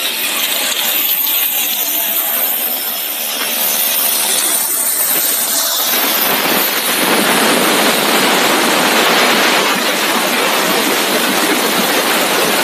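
Food extrusion line running: a steady, noisy mechanical whir from the extruder as it pushes out a continuous dough rope. The noise grows denser and a little louder about six to seven seconds in.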